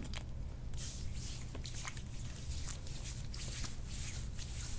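Hands spreading massage oil over a bare back: palms sliding and squishing on oiled skin in quick repeated strokes, starting about a second in.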